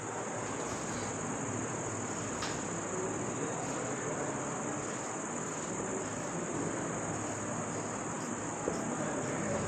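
Crickets trilling steadily, one continuous high-pitched note, over a steady background hiss.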